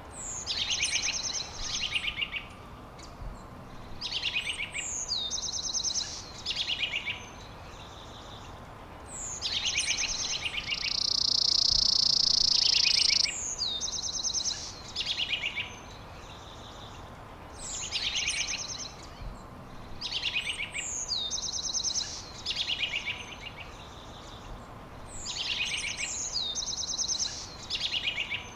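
A songbird singing the same phrase over and over every few seconds, each a quick falling whistle followed by rapid trilled notes. Near the middle a steady high buzz lasts about two seconds and is the loudest sound, over a constant outdoor hiss.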